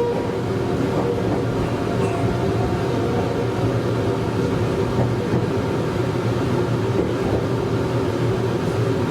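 Meitetsu 100 series electric train running between stations, a steady rumble of wheels on rail and running gear heard from the cab.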